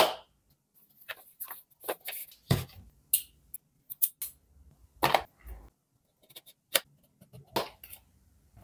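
Irregular clicks, taps and short scrapes from handling a small cardboard retail box and a butterfly knife, as the knife slits the box's seal sticker and the flap is opened.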